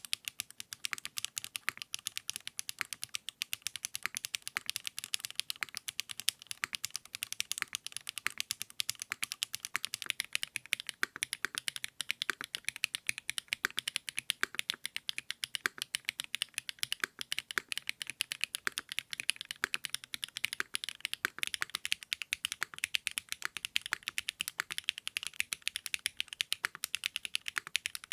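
Fast, continuous typing on a custom mechanical keyboard fitted with 80Retros x HMX KD400 switches: a dense, unbroken stream of crisp key clicks and clacks.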